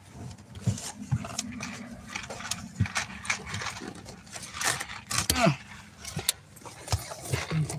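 Rustling and scattered light clicks of things being handled and rummaged through at close range, with a brief low vocal sound about five seconds in.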